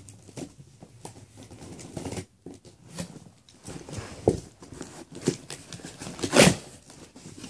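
Cardboard shipping box and its packing being handled and opened: irregular rustles, scrapes and knocks, the loudest a sharp knock about six seconds in.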